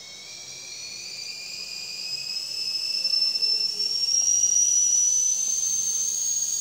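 Stovetop kettle whistling: one whistle that climbs slowly and steadily in pitch and grows louder.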